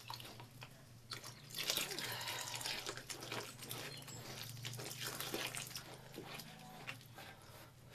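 Milk poured from a plastic jug into flour in an aluminium basin, splashing for about two seconds from a second and a half in. Then a hand works the wet flour with short soft clicks and rustles. A steady low hum runs underneath.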